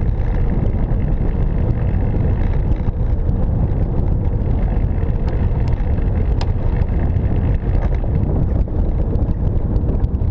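Steady low rumble of a velomobile rolling along a paved road, with wind buffeting the camera's microphone. A few faint ticks come about halfway through.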